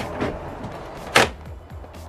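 Background music under a few sharp knocks. The loudest knock comes a little over a second in, a smaller one near the start, as the cable is pressed into place against the vinyl siding under the soffit.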